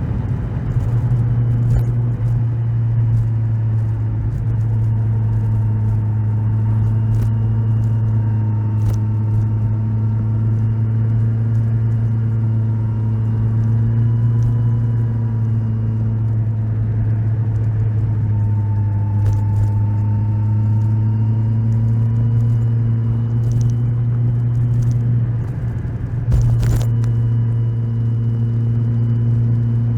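Kawasaki Z1000SX inline-four engine running steadily under way at cruising revs, its pitch sagging and rising a little near the middle. About 26 seconds in the note dips briefly and there is a sharp click before it steadies again.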